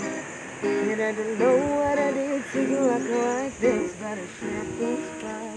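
A voice singing a wavering melody to acoustic guitar accompaniment.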